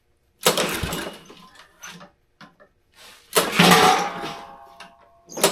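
Small lawnmower engine being started twice: each attempt catches with a loud burst and fades out over a second or so. It is the first start after the engine was rebuilt with a new sump gasket.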